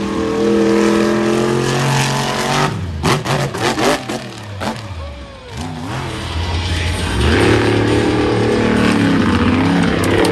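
Monster truck engine at high revs, holding a steady note, then a quick run of sharp cracks and a brief dip before it revs back up and holds high again.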